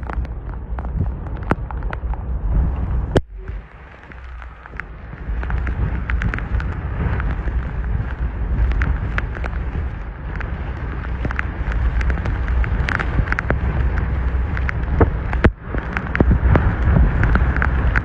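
Storm-force wind buffeting the microphone, a heavy low rumble full of crackles, over the roar of storm surf breaking on the harbour walls. The noise drops out briefly about three seconds in and again near the end.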